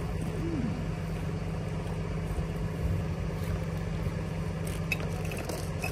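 An engine idling steadily, with a few faint clicks near the end.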